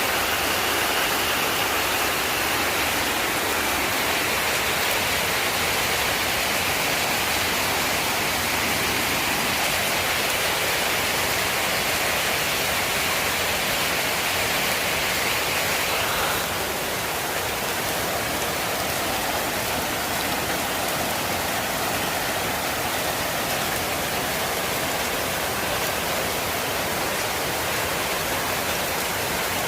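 Steady rain falling, a dense even hiss without distinct drops. About 16 seconds in, the sound becomes slightly quieter and less bright.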